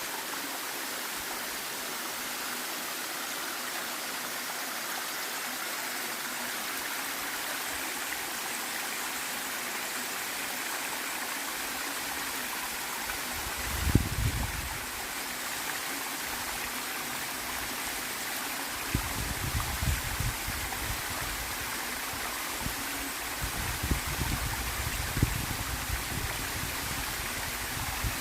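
Waterfall and stream water rushing steadily. Low rumbling thumps come in briefly about halfway through and again, on and off, through the last third.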